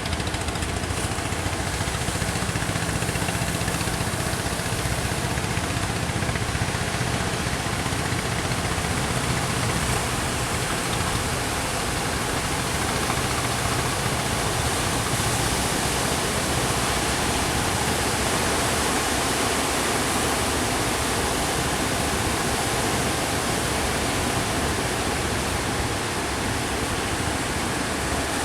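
Steady rushing of surf and wind, with a boat engine running low underneath for about the first ten seconds.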